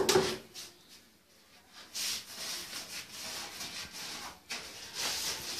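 A paintbrush scrubbing along a wall in a run of strokes, a scratchy rubbing sound, after a sharp knock at the very start.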